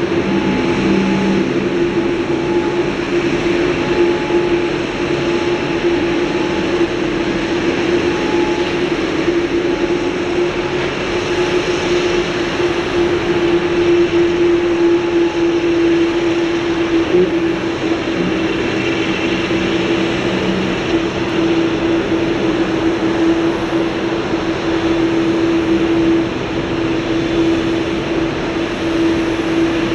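Boeing 787-8 jet engines running at idle as the airliner moves off after pushback: a steady, even noise with one constant hum-like tone held throughout.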